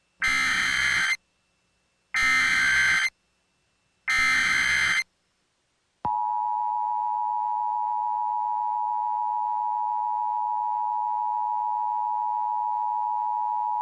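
Emergency Alert System tones: three one-second bursts of SAME digital header data, a second apart, then about six seconds in the two-tone EAS attention signal starts abruptly and holds one steady, harsh pitch. The sequence opens a broadcast of an emergency action termination message.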